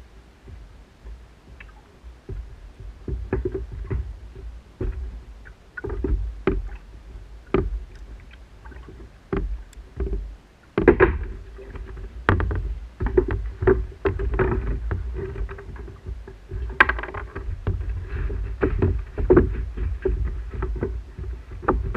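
Kayak on the water: irregular knocks and splashes against the hull over a steady low rumble, busier and louder from about the middle on.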